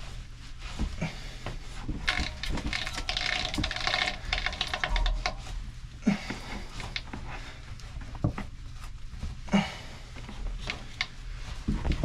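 Cloth rag rubbing and wiping excess grease off a fan shaft's pillow-block bearing while the belt-driven pulley is turned by hand, with scattered small clicks and knocks and a denser scratchy rubbing stretch from about two to six seconds in. A steady low hum runs underneath.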